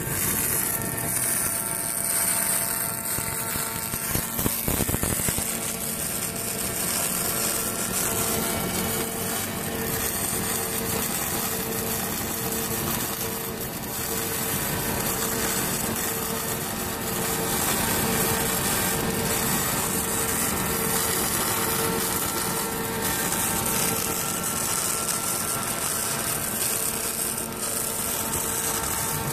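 Fronius MIG/MAG torch on a TPS 500i power source welding heavy steel plate at about 280 A and 27 V, 1.2 mm wire under argon–CO2 shielding gas: a steady spray-arc hiss.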